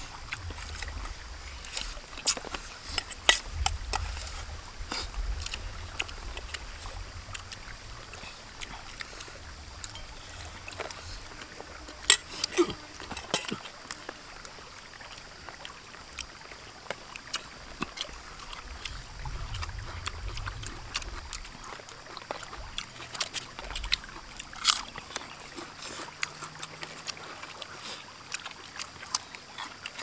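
People eating with their hands: scattered chewing, lip smacks and small clicks of food and bowls, over a steady faint outdoor background with a low rumble now and then.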